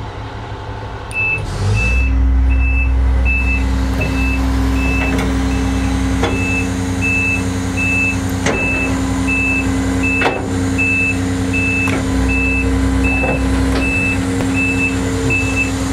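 Hydraulic outrigger system of a Rosenbauer Viper aerial ladder truck running as an outrigger jack is driven down to the ground: a steady low hum from the hydraulic drive, with a warning beeper sounding about two and a half times a second. A few sharp clicks come through about halfway through.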